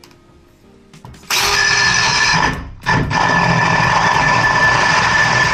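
Power drill running a hole saw into a plasterboard partition backed by a wooden batten. It starts suddenly about a second in and stops briefly near the middle. It then runs steadily again, a high whine over a harsh cutting noise.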